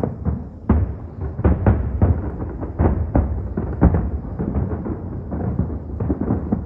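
Aerial fireworks bursting in a rapid string of booms, about two a second, with a low rumble between the bursts.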